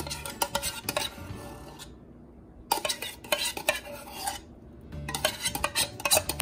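Metal spoon scraping condensed milk out of an opened can and clinking against the tin, in three bouts of quick scrapes and taps.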